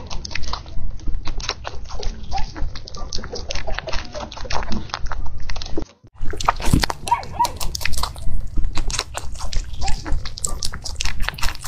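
Rabbits crunching raw carrot: a rapid, irregular run of crisp bites and chewing clicks, broken by a short gap about six seconds in.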